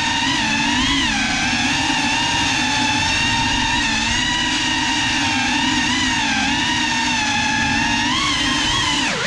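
GEPRC CineLog35 cinewhoop FPV drone in fast flight: its ducted propellers and brushless motors give a loud, steady buzzing whine whose pitch swells and dips with the throttle, dropping sharply near the end.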